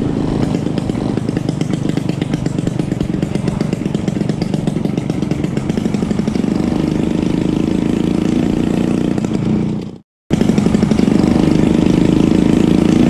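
Classic two-stroke Vespa scooter engine running steadily while riding along. The sound drops out for a moment about ten seconds in, then the engine carries on.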